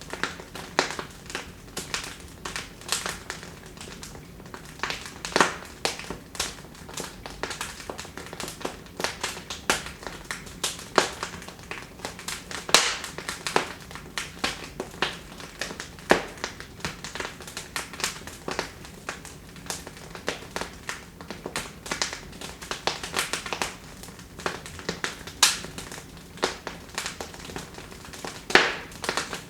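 Wood fire crackling in a fireplace: an irregular stream of small snaps and pops, several a second, with a few louder pops over a low hiss.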